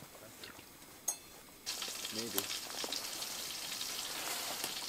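Canned food sizzling as it lands in a hot pot on a propane camp stove, starting suddenly about a second and a half in and going on steadily while it is stirred, after a single metal clink of the can on the pot.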